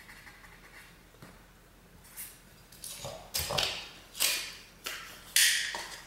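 About six short scraping and sliding sounds from a tape measure and pencil being handled on a sheet of drywall, after a faint first two seconds. The last scrape is the loudest.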